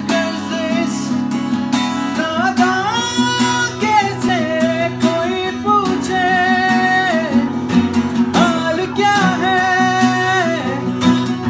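A man singing a melody with long held notes over two acoustic guitars, the guitars strummed steadily in chords.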